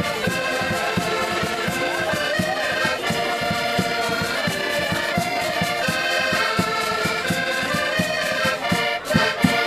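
Lively Portuguese folk tune on two button accordions, with a small plucked string instrument strumming along to a quick, steady beat.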